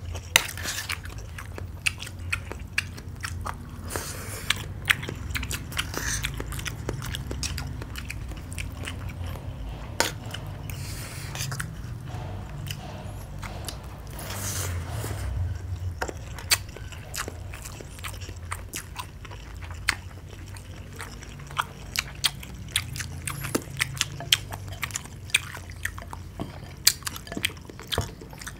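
Close-up chewing and mouth sounds of people eating fried rice, with many sharp clicks of spoons against plates and mouths.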